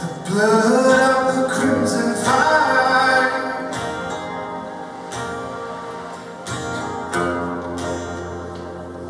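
A man singing live over a strummed acoustic guitar. His voice is loudest through the first three seconds or so, after which the guitar goes on more quietly under softer singing.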